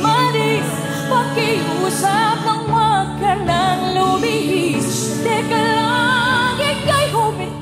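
A woman singing a pop ballad live, with wavering runs and vibrato and no clear words, over a steady band accompaniment.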